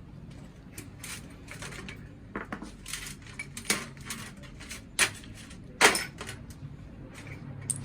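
Metal tools and parts clinking and knocking against each other, a dozen or so sharp strikes with two loud ones about five and six seconds in, over a steady low hum.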